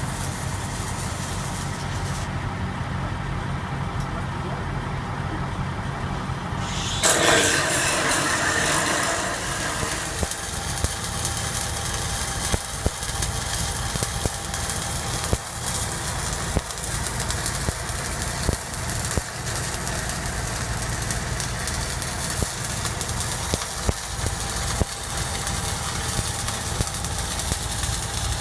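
Stick-welding (SMAW) arc crackling on a steel pipeline joint from about ten seconds in, full of short pops, over the steady low hum of a welding rig's engine-driven welder running throughout. A brief louder burst comes about seven seconds in.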